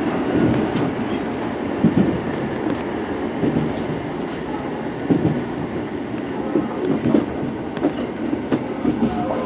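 Cabin of a JR Central 373 series electric multiple unit running along the line. It makes a steady running noise of wheels on rail, with a few irregular clicks as the wheels cross rail joints.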